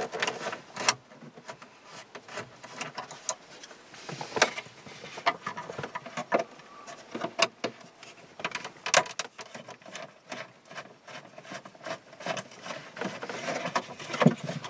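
T25 Torx screwdriver working on the screws that hold a car's factory radio unit in the dashboard: irregular clicks, ticks and scrapes of metal on screw heads and plastic trim.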